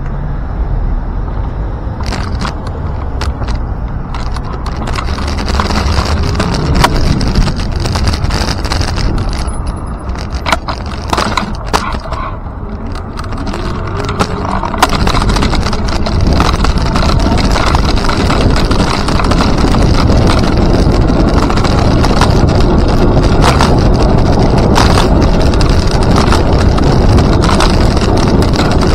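Rolling and wind noise from riding along a paved trail, with scattered clicks and rattles. It grows louder and steadier about halfway through.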